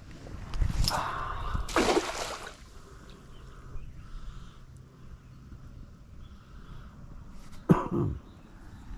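Water splashing and dripping, with a loud splash about two seconds in and a sharp knock near the end.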